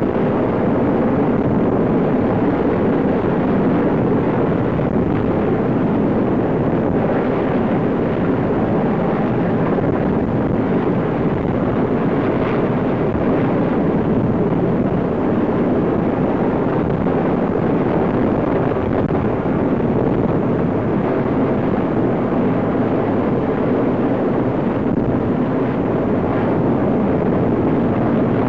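RAF search-and-rescue helicopter close by, a loud steady rotor and engine noise with wind on the microphone.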